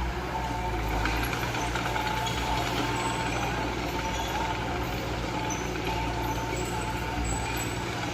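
Diesel engine of heavy earthmoving machinery running steadily, with a high tone that repeats about once a second.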